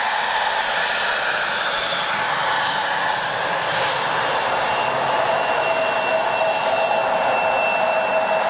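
Jet airliner engines running: a steady rushing noise carrying high whining tones, with a new whine coming in about halfway through.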